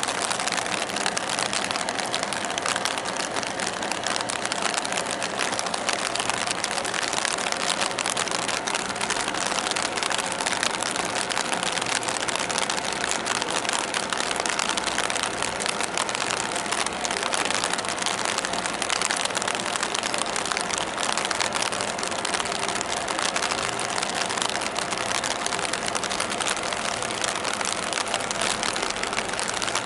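Steady engine drone under a constant hiss, with no change in level throughout.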